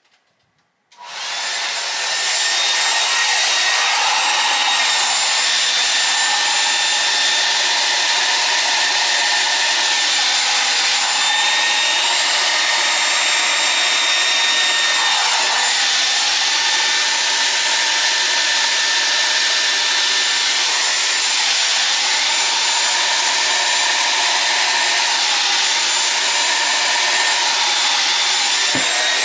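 Hair dryer switched on about a second in, quickly coming up to speed, then blowing steadily on high with a faint whine. The rush of air shifts a little in tone now and then as it sweeps over the canvas.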